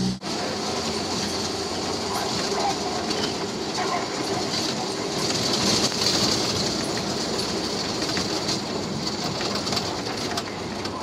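Rattling ride noise from an open jeep driving along a rough lane: the body and fittings clatter over the road surface over the engine and wind noise, with a steady high hiss.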